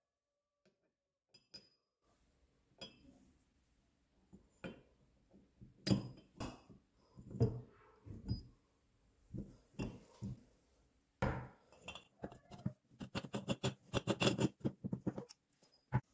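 Metal parts of a manual meat grinder clinking and knocking against each other and a hard surface as they are handled. Separate knocks come first, then a quick run of rattling clicks near the end.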